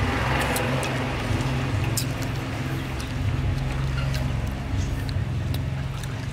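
A steady low rumble on the microphone, with scattered faint clicks of people chewing and handling grilled chicken wings on skewers.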